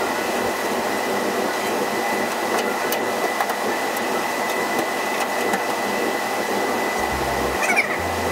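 Steady mechanical running noise with a constant thin high whine, from a machine running unseen in the workshop.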